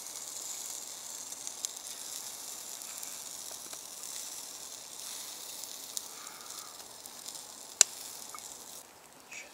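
Food sizzling in a cast-iron frying pan on a small camp stove, a steady high hiss with light crackles. There is a single sharp click about eight seconds in, and the sizzle fades away near the end.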